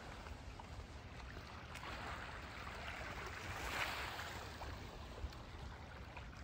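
Faint lake water washing against a stone shoreline, swelling and fading in the middle, over a low rumble of wind on the microphone.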